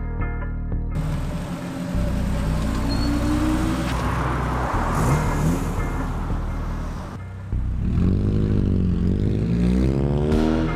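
Car engines revving and accelerating, their pitch climbing, then dipping and rising again near the end, heard in two or three edited pieces. The first second is music.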